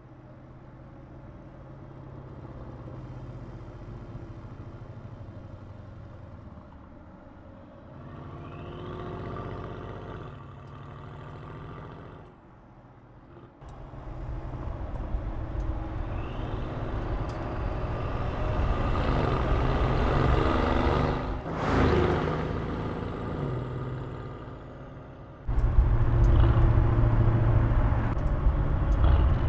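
Mercedes-AMG GLE 63 S twin-turbo V8 engine accelerating through the gears in a series of cut-together driving shots, its note rising again and again. A short lull comes about 13 seconds in, and the engine is loudest from about 25 seconds in.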